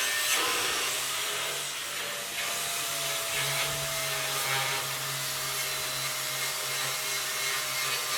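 A power tool running steadily, a continuous motor hum with a strong hiss.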